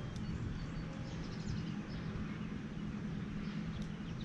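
Outdoor ambience by the water: a steady low rumble with a few faint, high bird chirps in the first second.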